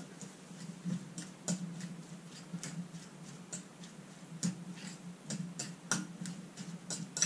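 Metal fork clicking and scraping against a bowl while stirring chicken salad, in irregular taps about one or two a second. A steady low hum runs underneath.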